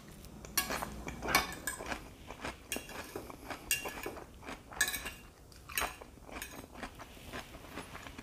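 Metal fork clinking and scraping against a plate, in many irregular short taps as salad is gathered up.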